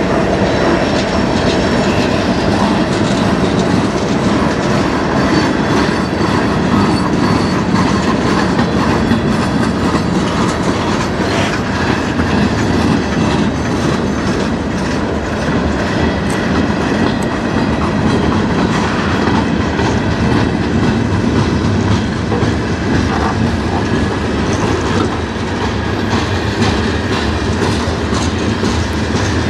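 Freight cars of a mixed freight train rolling steadily past: boxcars, covered hoppers and a loaded centerbeam lumber car. Their wheels make a continuous rumble with a constant run of clicking and clacking over the rail joints.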